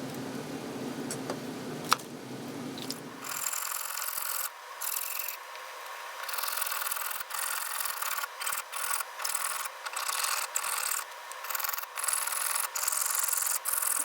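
A low hum with a single click, stopping about three and a half seconds in. Then repeated stop-start hand strokes of a file or abrasive rubbing on a small sterling silver disc, as its edges are smoothed and its back sanded.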